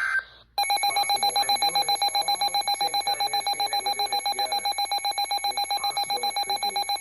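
Emergency alert tone from an EAS broadcast: a fast-pulsing electronic alarm, about six beeps a second, starting about half a second in, just after a short steady tone cuts off.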